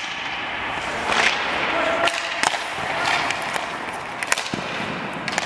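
Ice hockey shots: several sharp cracks of sticks striking pucks and pucks hitting a goalie's pads, over the scraping hiss of skates on ice.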